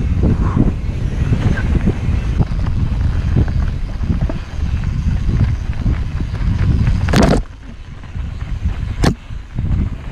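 Mountain bike running over a dirt and gravel trail, heard from the rider's camera: a steady rumble of tyres, rattling bike and wind on the microphone. A sharp clatter about seven seconds in, the loudest sound, and a smaller one near nine seconds, after which the rumble is quieter.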